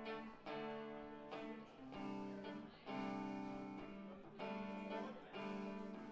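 A guitar plays the song's intro alone, strumming chords and letting each ring, with a new chord about once a second.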